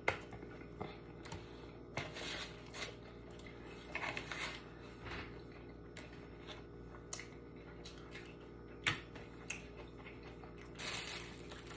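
Quiet eating sounds: scattered soft clicks and taps from chewing a burger and handling food over a foam takeout container, with a steady rustle starting near the end as food is picked from the container.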